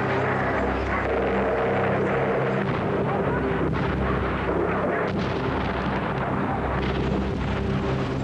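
Gunfire and explosions during a building assault: a dense rumble of noise with a few sharp cracks about halfway through, over a steady low drone.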